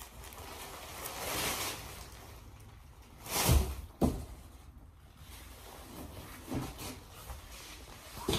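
Fabric rustling as a collapsible round light reflector is pulled from its pouch, then a loud swish about three and a half seconds in as it springs open, with a second sharp flap just after. Lighter handling swishes and knocks follow as it is held up.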